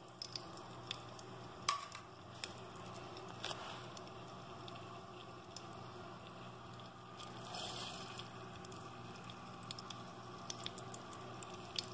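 Faint sizzle of cooking oil heating in a clay pot on the stove, with scattered small ticks and pops.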